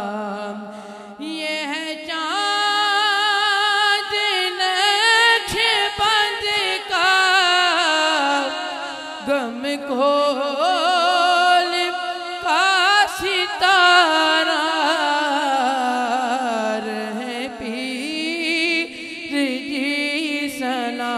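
A solo male voice sings a manqabat, a devotional praise song, through a handheld microphone. He holds long, ornamented notes with a wavering vibrato over a steady low drone.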